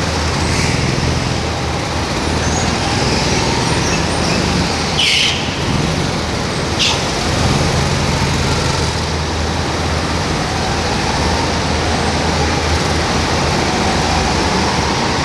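Rental go-karts running in the pit lane, a steady low mechanical hum, with two short hisses about five and seven seconds in.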